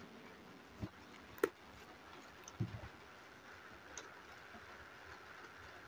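Quiet room tone with three faint knocks and clicks in the first few seconds: handling noise from a hand bringing a paintbrush to the paper and paint jars.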